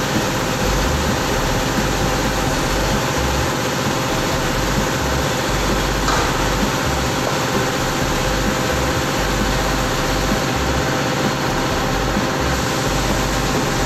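Aluminium-cutting circular saw running without load: a steady machine hum and hiss with a few faint steady tones.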